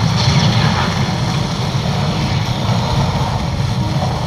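A steady, deep rumbling drone with a hiss above it.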